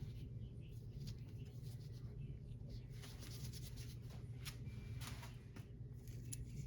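Faint light scratching and handling of small carburetor parts, a few soft clicks over a low steady hum.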